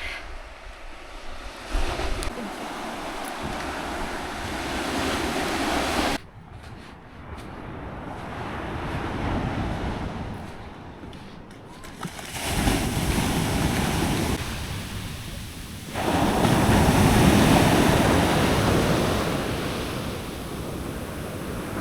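Ocean waves surging and washing on the shore, swelling and fading over several seconds, with wind on the microphone. The sound drops abruptly about six seconds in and jumps louder again about two-thirds of the way through.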